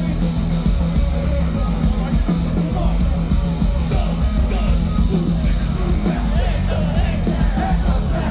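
Live nu-metal band playing loud, with a heavy, pounding bass and drum low end under distorted guitar, as heard from the concert crowd.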